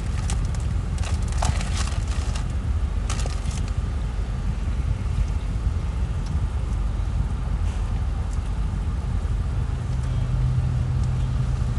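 Car engine idling, heard from inside the cabin as a steady low rumble. A few brief crackles come in the first few seconds, and a low steady hum joins near the end.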